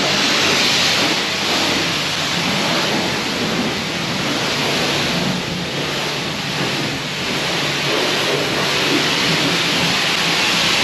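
High-pressure car-wash spray wand blasting water onto a dirt bike: a steady hiss of spray that runs unbroken.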